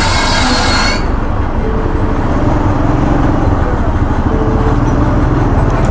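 Motorcycle engine running steadily at low riding speed, a continuous low rumble. A loud hiss sounds over it for about the first second.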